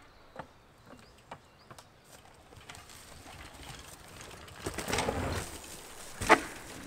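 Mountain bike rolling along a wooden ramp with scattered clicks, then a rising rush of tyre noise and a loud burst about five seconds in as it drops off the end onto dirt. A sharp knock a little after six seconds is the loudest sound.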